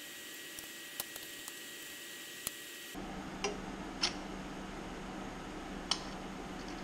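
A few light clicks and taps of a metal exhaust tube being handled and fitted against an aircraft engine's exhaust port. A faint steady hum comes in about halfway through.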